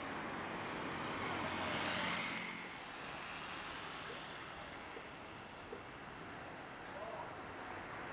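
Boeing 737-800's jet engines running, a steady rushing drone that swells to its loudest about two seconds in, then settles back to a lower, even level.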